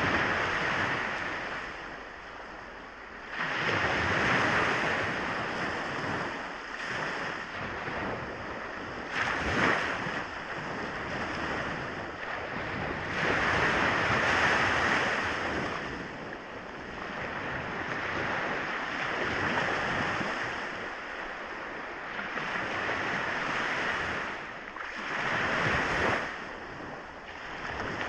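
Sea waves washing onto the shore, the surf swelling and falling back in repeated surges a few seconds apart.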